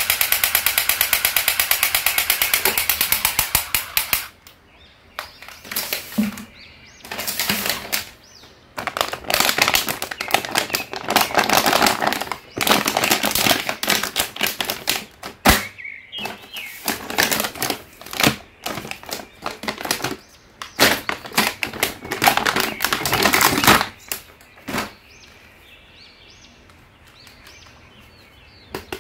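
Battery-operated crawling soldier toy's machine-gun sound effect, a rapid rattle that cuts off about four seconds in. After it come irregular bursts of crinkling and rustling as a toy is unwrapped from its plastic blister pack.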